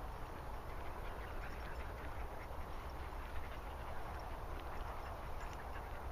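Dog panting close by over a steady rustle of walking through long grass and bracken, with a low wind rumble on the microphone.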